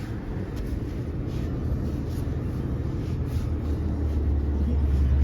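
Vehicle engine running with a steady low rumble that grows louder toward the end.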